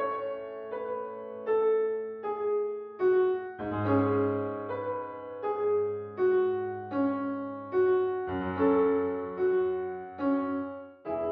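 Slow solo piano music. A note or chord is struck about every three quarters of a second and left to ring, and deeper bass notes come in every few seconds.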